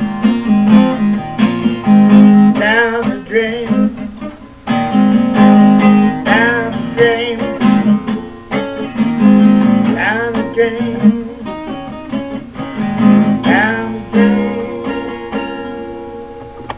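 Solo acoustic guitar played without singing: picked and strummed chords with a few notes bending in pitch. It ends on a last chord left to ring and fade.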